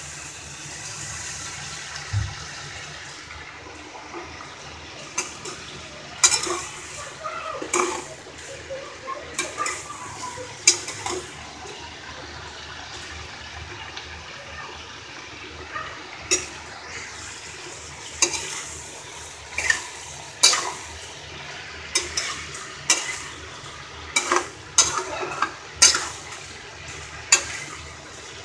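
A metal spatula repeatedly knocking and scraping against a steel kadai as sliced bitter gourd and potato are stir-fried, over a steady frying hiss. The knocks come about once a second, more often in the second half.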